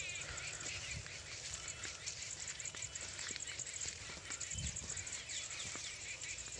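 Faint field ambience: birds chirping with short calls and quick high trills, over a low uneven rumble.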